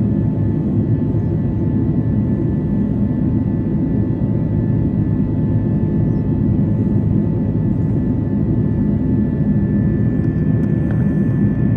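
Jet airliner cabin noise heard from a window seat in flight: a loud, steady rumble of engines and airflow, with a faint steady whine above it.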